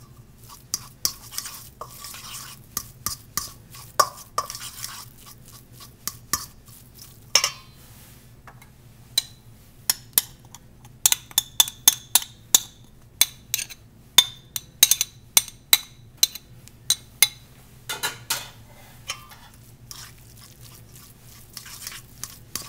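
A fork mashing and stirring egg yolk and pesto in a stainless steel bowl, its tines clinking and scraping against the metal. In the middle comes a quicker run of sharp, ringing clinks.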